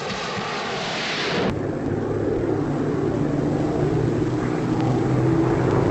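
Early Gloster jet aircraft flying past on an old newsreel soundtrack. A hissing rush cuts off suddenly about a second and a half in, and a steady engine drone follows, its hum rising slowly.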